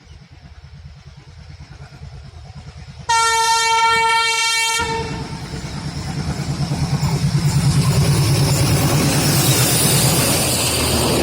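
An approaching express train's locomotive rumbles louder, then sounds its horn in one blast of about a second and a half. The loud rush and rhythmic clatter of the train passing close by follows.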